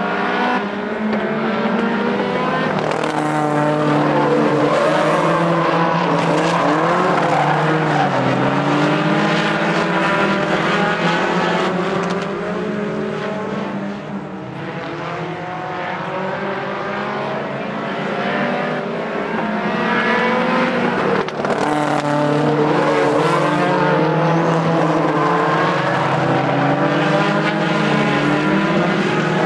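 Several modified VW Golf hatchback stock cars racing together on a dirt track, their engines revving up and falling back over and over, with the engine notes of different cars overlapping. The sound dips briefly about halfway through.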